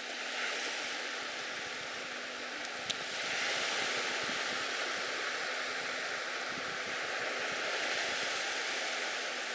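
Steady wash of wind and small lake waves along the shore, a little louder from about three seconds in, with one sharp click just before that.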